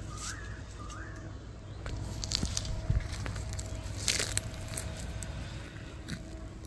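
Kangaroo grazing, tearing and chewing grass in irregular crunches and snaps over a steady low rumble.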